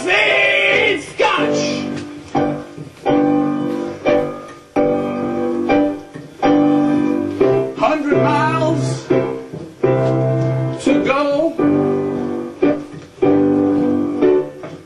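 Piano chords struck about once a second and left to ring, with a man singing over them in a wavering voice at moments.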